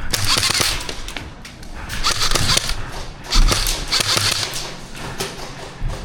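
Airsoft guns firing in several bursts of rapid, sharp cracks, with clusters of clicks between the bursts.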